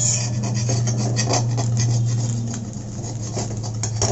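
Rice-and-jaggery pitha shallow-frying in a metal pan, a faint fine crackle over a steady low hum. Near the end a metal spatula scrapes under the cake to turn it.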